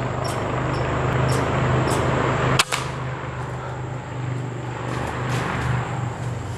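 Steady low outdoor hum with a rushing background, broken by one sharp crack about two and a half seconds in.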